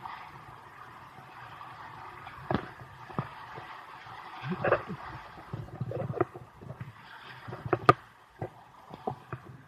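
A river running steadily, with irregular splashes and sharp knocks from paddling; the loudest knock comes near the end.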